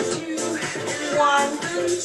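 Background pop music with a singing voice over a steady beat.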